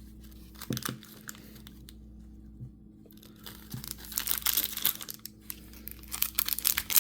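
A toy blind bag being torn open and crinkled by hand: a few soft clicks first, then from about halfway through a busy run of tearing and crinkling that grows toward the end.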